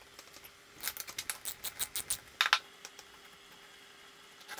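Light metal clicks and clinks from hand tools and parts as the base of an EQ5 telescope mount is unscrewed: a quick run of about a dozen from about a second in to just past halfway, the loudest near the middle.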